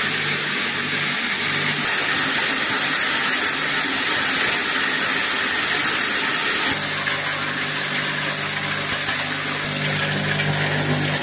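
Electric grain crusher running steadily, grinding grain into feed with a continuous motor hum and rushing noise. Its sound shifts slightly about two seconds in and again near seven seconds.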